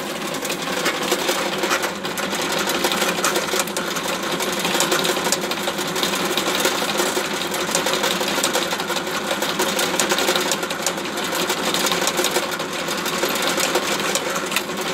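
Benchtop drill press running steadily with a steady motor hum while a small bit drills a screw hole into a composite model-glider fuselage fitted with a small aluminium plate at the screw point.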